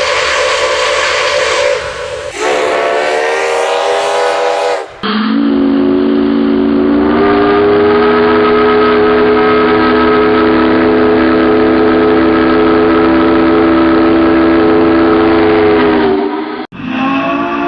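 A series of made-up train whistle sounds, each a chord of several steady pitches like a chime whistle. A short blast ends about two seconds in, a second one slides up in pitch and holds until about five seconds, then a long one sounds for about eleven seconds and stops abruptly, and another starts near the end.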